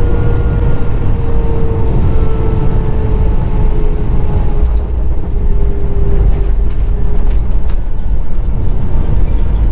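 Airbus A320-family airliner cabin noise during the final approach and touchdown: a loud, steady low rumble with an engine tone sliding slowly down in pitch, then knocks and rattles through the cabin in the second half as the wheels touch down.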